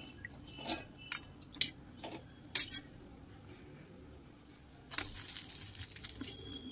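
Steel spoon clinking against a stainless steel bowl while soaking fried vadas in water. A few separate sharp clinks come in the first three seconds, then a pause, then a quicker run of lighter clinks near the end.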